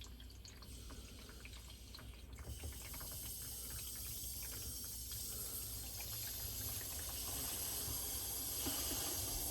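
Water hissing into a newly fitted under-sink filter cartridge as the cold-water supply is slowly opened to fill the housing. After a few faint drips, the hiss starts about two and a half seconds in and grows steadily louder.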